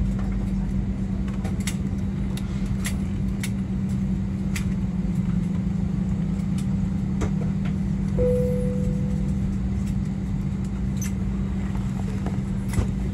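Steady drone of the Airbus A320's CFM56-5B turbofan engines at ground idle, heard from inside the cabin, with a strong low hum. Scattered sharp clicks run through it, and a short fading tone sounds about eight seconds in.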